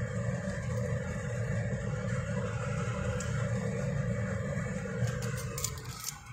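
Steady rumble and hiss of a saucepan of water at a full boil on a gas burner as spaghetti cooks in it, with a few light metallic clicks near the end.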